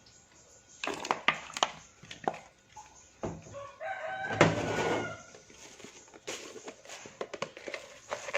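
A rooster crows once, about four seconds in, a drawn-out call lasting around a second and a half. A few sharp clicks and knocks come before it.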